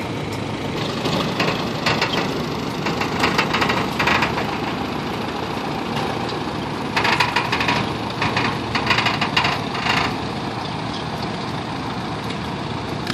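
Allis-Chalmers WD tractor's four-cylinder engine running under load as it pulls a weighted pan sled. Bursts of rapid clattering come from about one to four seconds in and again from about seven to ten seconds.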